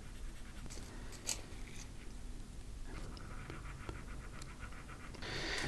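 Faber-Castell Pitt pastel pencil scratching on Pastelmat pastel paper in short strokes, with a sharp tap about a second in and a louder stroke near the end.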